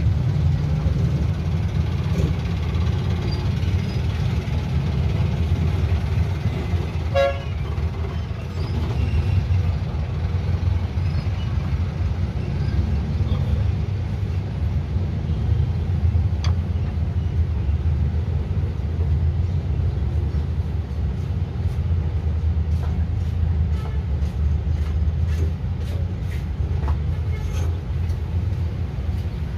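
A steady low droning hum, like a nearby motor running, with a few faint light clicks and taps near the end.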